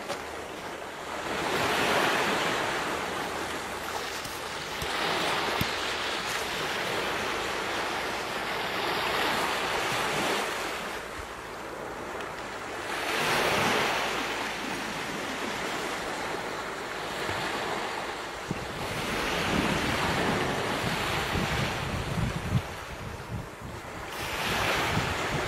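Ocean surf: waves breaking and washing in, swelling and fading in slow surges a few seconds apart.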